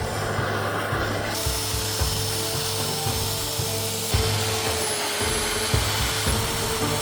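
A tool working wood with a steady rubbing, abrasive sound, under background music.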